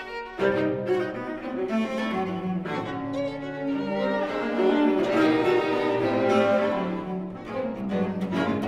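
String quartet of two violins, viola and cello playing held, bowed chords with the cello strong underneath; a short break at the very start, then all four come in together just after it.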